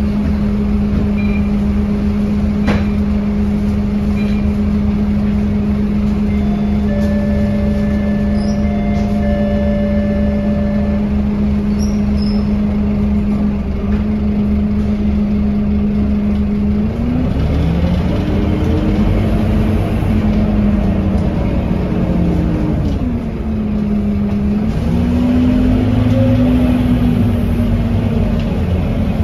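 Scania K230UB bus engine, a 9-litre five-cylinder diesel, running steadily at idle, then revving up as the bus pulls away about two-thirds of the way in, with the pitch climbing, dipping once at a gear change and climbing again.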